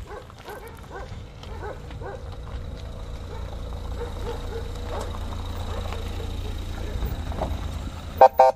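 Low vehicle engine rumble with dogs barking repeatedly in the distance, then two short loud pitched blasts near the end.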